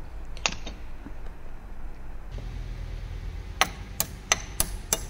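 Wrench clicking on a car battery's negative terminal clamp nut as it is worked back on. There is one sharp click about half a second in, then, from about three and a half seconds in, a run of evenly spaced sharp clicks, about three a second.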